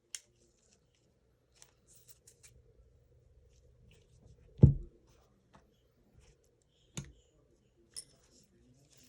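Airsoft gun gearbox parts being handled during disassembly: scattered light clicks and taps, with one louder knock a little past halfway and two sharper clicks later on.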